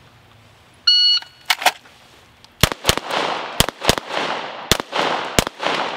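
A shot timer's start beep about a second in, then a string of about six pistol shots from about two and a half seconds in, each with an echoing tail.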